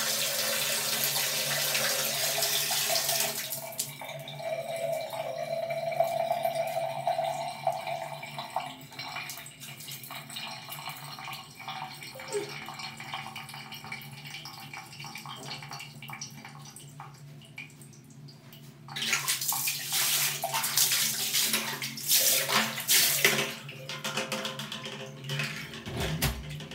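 Water from a wall tap running into a plastic bucket, the rush dropping about three and a half seconds in and then rising slightly in pitch as the bucket fills. Later, in the second half, bursts of loud, irregular water splashing.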